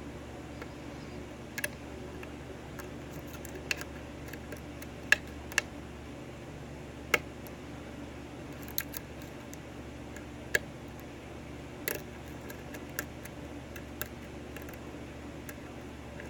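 About a dozen sharp metallic clicks at irregular intervals from a lock pick and tension wrench working the pins of a 6-pin Dorma pin-tumbler lock during single-pin picking. A steady low hum sits underneath.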